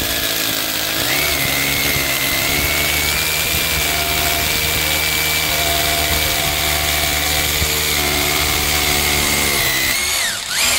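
Worx cordless mini rotary hammer drilling a 6 mm hole into concrete, running steadily under load with a high motor whine, its pitch dipping briefly near the end. It gets through the concrete easily.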